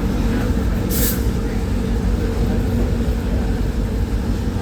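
Steady low rumble of a diesel-hauled passenger train running, with a short hiss of air about a second in.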